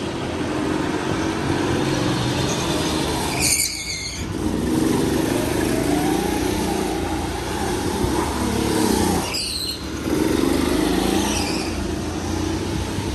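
Go-kart engine running and revving up and down as the kart laps a concrete track. The engine briefly drops off twice, about three and a half and nine and a half seconds in, and each time a short high tyre squeal sounds as the kart takes a corner.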